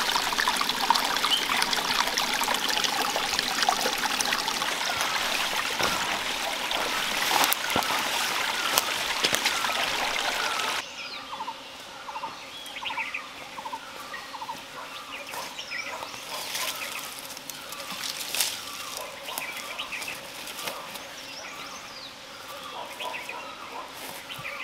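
Birds calling over a steady rush like trickling water. About eleven seconds in, the rush cuts off suddenly, leaving repeated short bird calls over a quieter background.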